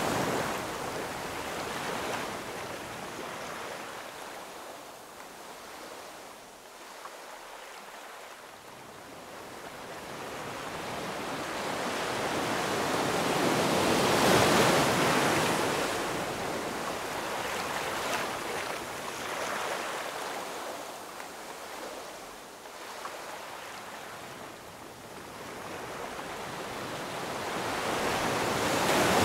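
Ocean surf: an even hiss of waves that swells and ebbs slowly, cresting at the start, about halfway through and again at the end.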